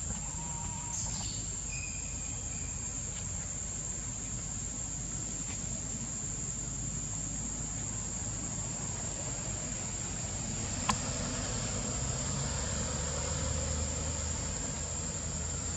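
A steady, high-pitched insect drone, a single unbroken tone, over a low rumble that grows slightly louder in the second half. A single sharp click about eleven seconds in.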